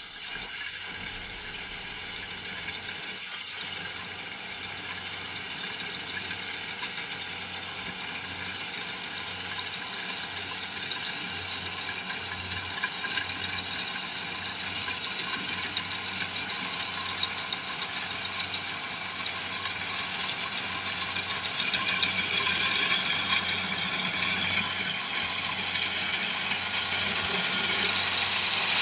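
Kubota DC70 Plus combine harvester running, its diesel engine and threshing machinery giving a steady mechanical drone with rattling, slowly getting louder.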